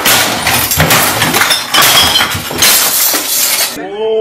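Loud crashing and smashing as things in a room are hit and knocked over, with glass breaking and clinking. It cuts off suddenly near the end, and a man starts laughing.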